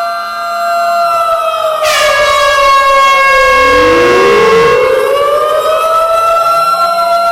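Several sirens sounding together: steady siren tones with wailing glides that fall and rise again. About two seconds in a sudden, horn-like blast rich in overtones cuts in over them and fades out around five seconds.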